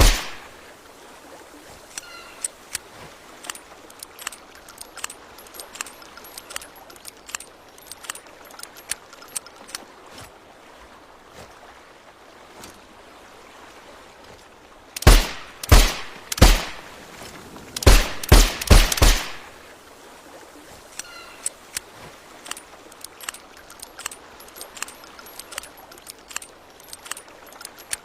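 Suppressed Nagant revolver firing seven shots: three about two-thirds of a second apart, a short pause, then four in quicker succession. A steady hiss with scattered faint clicks sits underneath.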